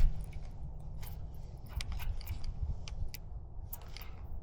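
Fishing reel being cranked to retrieve a lure after a cast, giving irregular light mechanical clicks and ticks, over a steady low rumble.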